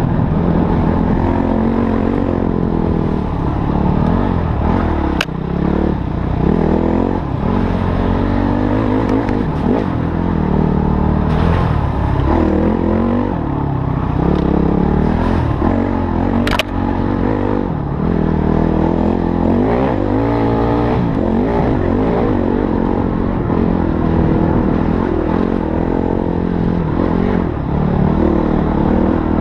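Motorcycle engine revving up and down continuously while riding, with two sharp knocks, one about five seconds in and one past the middle.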